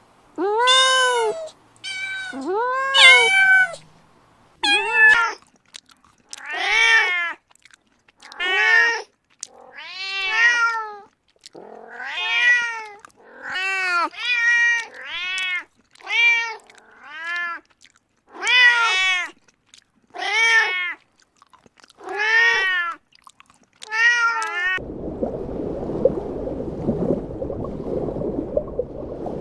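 A kitten meowing over and over, high-pitched calls about a second apart, each rising and then falling in pitch. About 25 seconds in the meows stop abruptly and a steady rushing noise follows.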